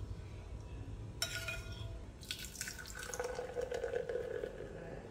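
Quiet liquid sounds and light clinks of a spoon stirring a small bowl of fish-sauce dipping sauce, with one clearer clink about a second in. A faint steady hum sounds a little past the middle.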